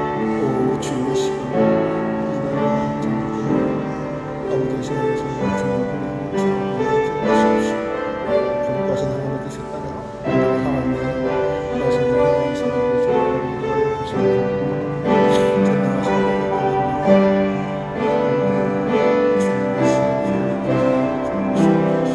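Slow piano music: held chords under a simple melody, the notes changing about once a second.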